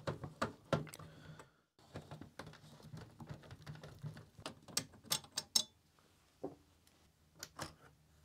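Screwdriver turning small screws out of the sheet-metal clamp plate over a CD player's disc mechanism, making irregular light clicks and scrapes, sharper about five seconds in, and small metallic clicks as the plate is handled.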